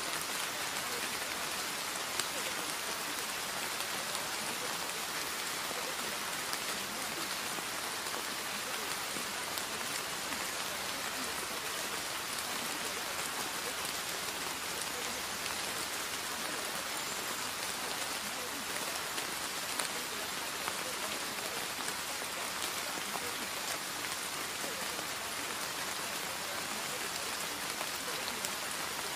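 Steady rain falling: a continuous even hiss with faint scattered drop ticks.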